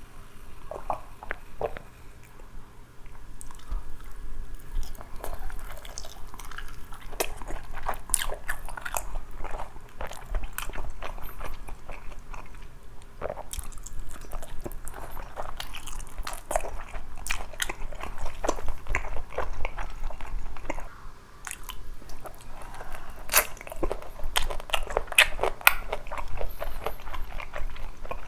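Close-up crunching and chewing of crispy Korean fried chicken coated in spicy sauce: bursts of sharp crackles as the crust is bitten into and chewed, with a short pause about two-thirds of the way through.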